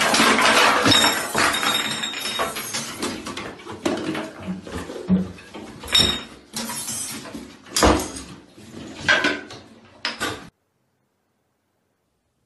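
Bottles and other bathroom objects clattering and clinking as a cat knocks them over, with several separate sharp knocks. The sound cuts off abruptly to silence near the end.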